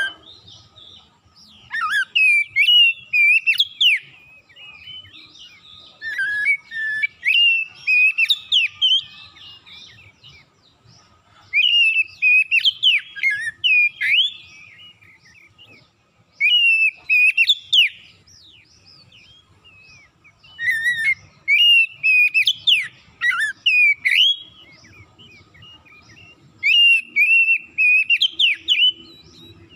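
Oriental magpie-robin in full song: loud, rapid, varied whistled phrases delivered in about six bursts of two to four seconds, with short pauses between them. The song is packed with learned, imitated phrases.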